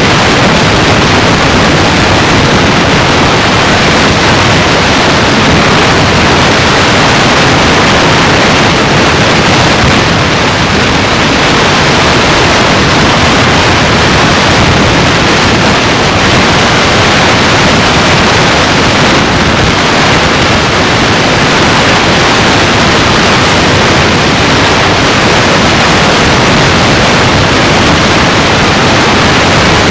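Loud, steady static hiss, an even rushing noise that does not change.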